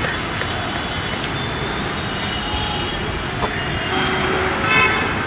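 Steady road traffic noise, with a short vehicle horn toot near the end.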